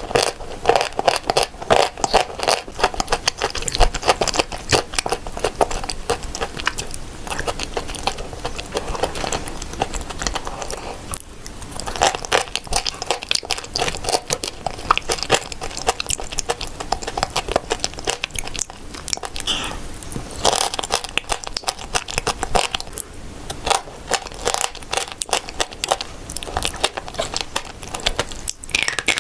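Close-miked crunching and chewing of eating chalk and clay: a dense run of crackles and scrapes, with short pauses about eleven seconds in and near the end.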